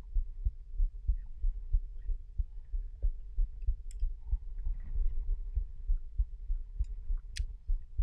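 Muffled, irregular low thumps of water slapping against an action camera's waterproof housing at the waterline, several a second, over a faint steady hum. Two light clicks, one about midway and one near the end.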